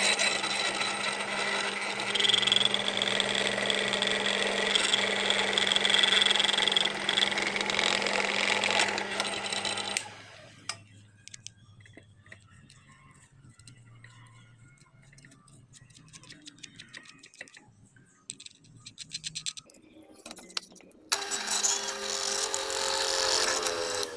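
Drill press running with its bit boring through a plastic lid, a steady motor hum under a high cutting whine. It stops about ten seconds in. Light clicks and knocks follow as the lid is handled, then the drill starts again near the end, rising in pitch as it spins up.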